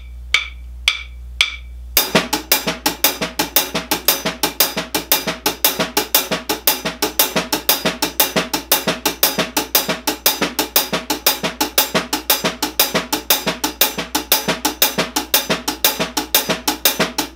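Drum kit playing a triplet shuffle: the right hand plays the shuffle on the closed hi-hat and the left plays ghost notes on the snare, at about 100 BPM. Four count-in clicks come first, and the even stream of strokes starts about two seconds in.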